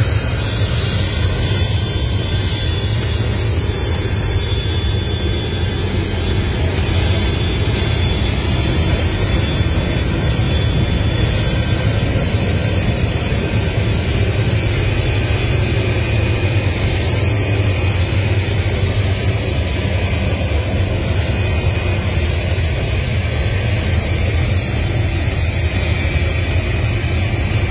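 Jet engines of Su-25-type military attack jets running steadily on the ground: a continuous noise with a deep rumble underneath and a thin high whine on top.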